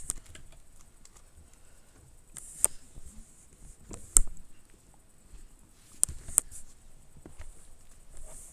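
Irregular light clicks and rubbing from something handling or brushing against the recording device, with a few sharper knocks about two and a half, four and six seconds in.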